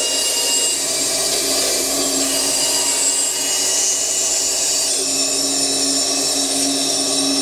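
Redverg RD-BS-152 band saw running steadily while ripping a small wooden block lengthwise, the motor's hum under the higher noise of the blade cutting the wood, strongest about two to four seconds in.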